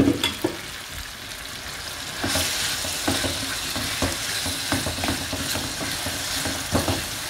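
Tomato, onion and fish sauce sizzling in a frying pan as a wooden spoon stirs it, knocking and scraping against the pan at irregular moments, with a sharp knock at the start. The sizzling gets louder about two seconds in.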